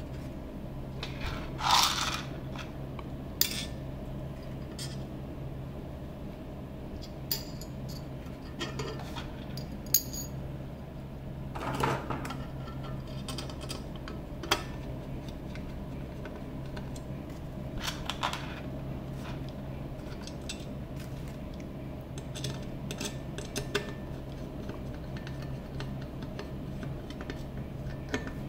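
Black metal chassis parts and small screws clinking, tapping and scraping on a table as a heatsink side panel is fitted to the base plate and screwed in by hand. Scattered single clicks and knocks, the loudest about two seconds in and again about twelve seconds in, over a steady low hum.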